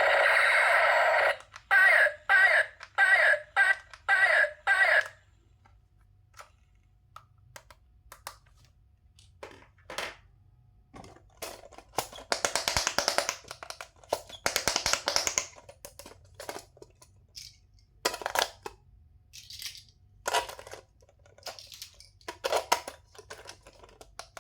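Electronic toy sound effects: a loud steady electronic tone that stops about a second in, then six quick pulsing beeps over the next few seconds. After that come scattered clicks and short rustles of toys and packaging being handled.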